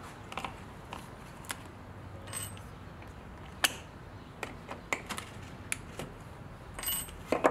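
Scattered sharp clicks and small plastic snaps as needle-nose pliers pry at the gear-lever boot surround of a hard plastic centre-console panel. The loudest click comes about three and a half seconds in, and a quick cluster of rattling clicks comes near the end.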